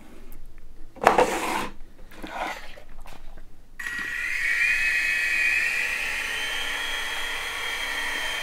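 Knocks and rustles of the toy helicopter being handled and set down, the loudest knock about a second in. About four seconds in, the small electric rotor motors of the Simulus indoor RC helicopter start up and run with a steady high whine, rising slightly in pitch as it flies.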